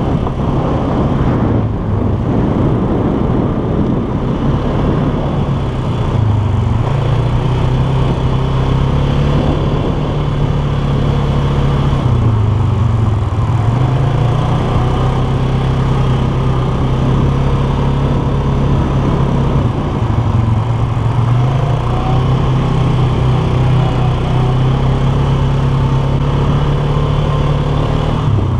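Polaris 450 ATV engine running steadily under way, its engine speed dipping briefly about every six or seven seconds before picking up again.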